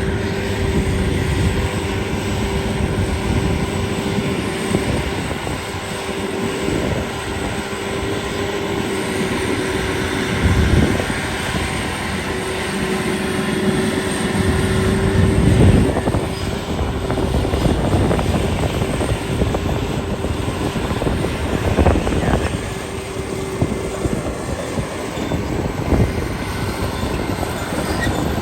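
Kubota DC688Q combine harvester running steadily under load while cutting and threshing rice, its diesel engine carrying a constant whine. The noise swells louder a few times.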